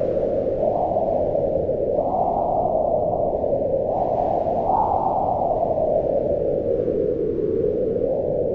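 Howling wind in a steady rush whose pitch swells up and falls back slowly, rising highest about two seconds and again about four to five seconds in.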